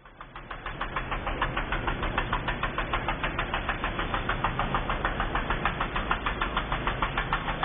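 Riding mower engine running steadily, with a rapid, even chugging beat of about eight pulses a second over a low hum.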